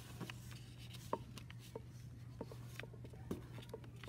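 Sheet of printer paper being folded and creased by hand: faint scattered taps and light rubbing of fingers pressing the paper flat, over a steady low hum.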